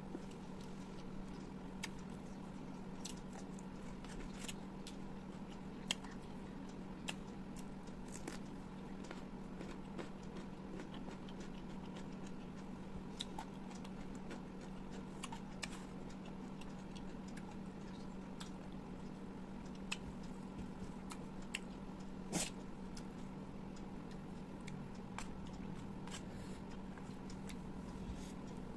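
Close-miked eating sounds: chewing with small wet mouth clicks scattered irregularly, over a steady low hum.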